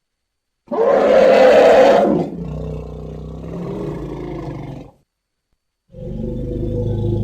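Elephant calls: after a short silence, a loud roaring call lasting about a second and a half trails into a quieter, lower call that stops about five seconds in. After a second's pause, another low call with a steady pitch begins near the end.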